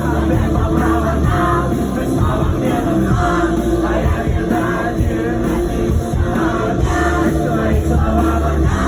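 Live rock music played loudly through a club PA, with a steady heavy bass.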